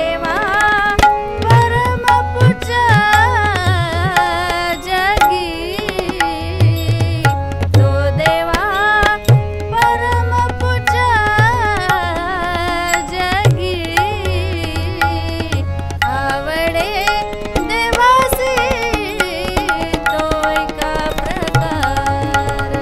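A woman singing a Marathi abhang (devotional song) in long, ornamented phrases whose pitch wavers and bends, over held harmonium chords. Tabla accompanies her throughout, its bass drum giving deep resonant strokes under the sharper treble-drum strokes.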